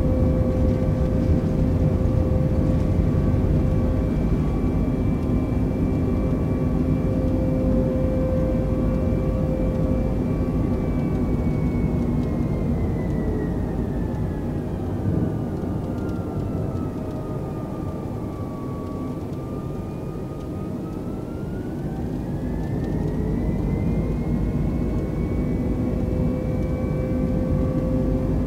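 Airbus A320 jet engines and cabin noise: a steady rumble with a constant hum. About halfway through, one engine whine slides down in pitch and the noise eases a little, then the whine rises back to its earlier pitch.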